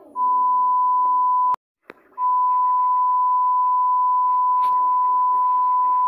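Censor bleep: a steady, high, single-pitch beep tone over muffled cartoon voices, played through a tablet speaker. It breaks off with a click about a second and a half in, then comes back and holds.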